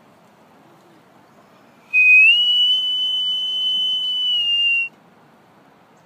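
A person whistling one long, high, steady note. It starts about two seconds in, slides up a little, holds for about three seconds, then stops abruptly.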